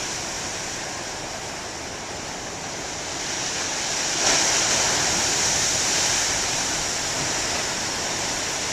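Ocean surf breaking on a beach: a steady wash of waves, with a wave crashing about four seconds in that stays loud for a few seconds.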